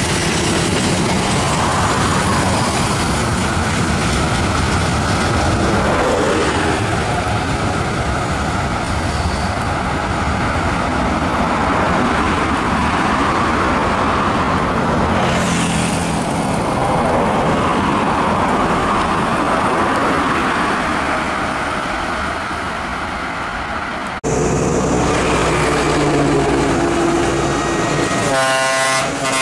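Container freight train rolling past close by, a steady loud rumble and rattle of wagons and wheels on rail. After an abrupt cut about 24 s in, an approaching diesel locomotive's engine is heard, with a brief pitched sound near the end.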